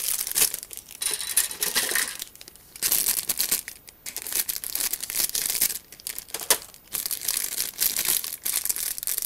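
Clear plastic bags wrapped around plastic model-kit sprues crinkling as a hand handles them, in irregular bursts with short pauses between.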